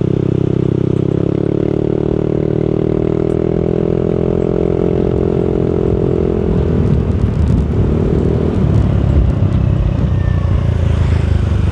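Yamaha Aerox scooter's single-cylinder engine through an aftermarket R9 exhaust while riding: a steady drone that rises slightly in pitch under throttle for about five seconds, then falls away and fades as the throttle is eased, leaving a low rumble of road and wind.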